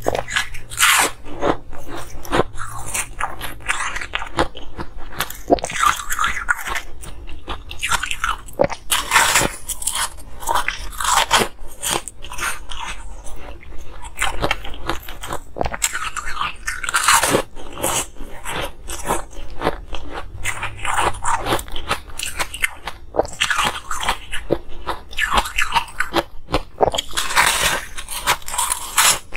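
Close-miked biting and chewing of frosty, pastel-coloured, waffle-shaped ice pieces: repeated sharp crunching and crackling bursts as the ice breaks between the teeth, recurring every second or two.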